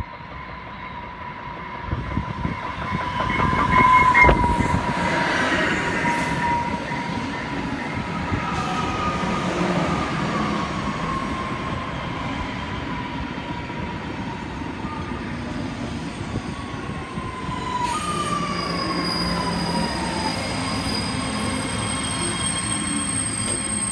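Electric multiple-unit commuter train arriving at a platform: a steady high whine that swells as the train draws level, loudest about four seconds in, over wheel and rail rumble. Then falling whines as it slows along the platform.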